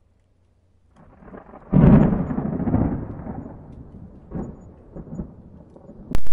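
Cinematic logo sound effect: a rush swells up about a second in and breaks into a loud boom, which fades slowly as a deep rumble with a couple of lighter hits.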